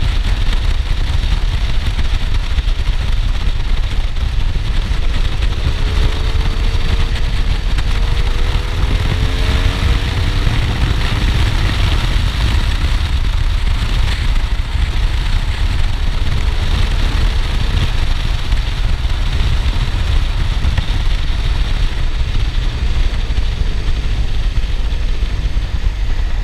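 Riding on a BMW R1200R's boxer-twin engine with an Akrapovic titanium exhaust, mostly buried under heavy wind rumble on the microphone. The engine note rises a few times between about five and twelve seconds in.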